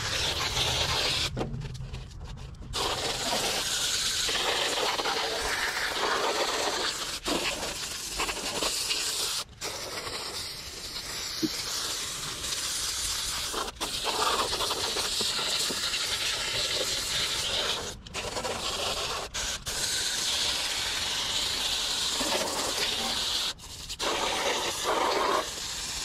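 Water spraying hard from a garden hose spray nozzle, washing down the fins of a heat pump's outdoor condenser coil: a steady hiss and splash that stops briefly several times and starts again.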